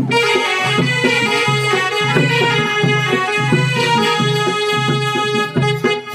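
Live Danda Nacha folk music: a barrel drum beating a steady rhythm under a reed instrument holding long sustained notes.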